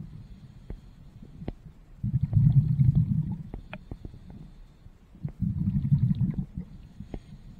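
Scuba diver breathing through a regulator underwater: two low, bubbling rumbles of exhaled air venting from the regulator exhaust, about three seconds apart, with quieter stretches and a few faint clicks between breaths.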